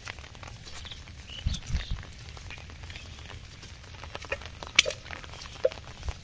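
Footsteps squelching on a wet, muddy path, with scattered soft clicks and a few low thuds of feet landing in mud.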